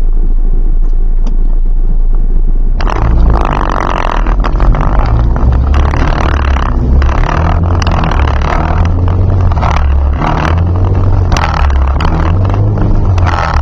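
Turbocharged Ford Focus ZX3's four-cylinder engine heard from inside the cabin. It idles with a steady low rumble, then about three seconds in the car pulls away and the engine note rises and falls with the throttle while driving slowly, with a louder rushing noise over it.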